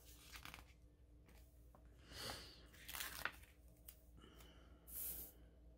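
Faint rustles of paper and sticker sheets being handled, three soft brushing sounds about two, three and five seconds in, near silence between.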